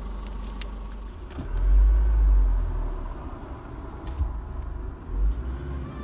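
Low rumble inside an Isuzu vehicle's cabin, with a few sharp clicks in the first second. A louder low rumble swells for about a second from around one and a half seconds in.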